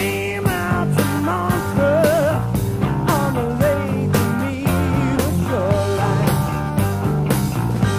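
Rock song with a steady drum beat, about two beats a second, under a wavering melody line.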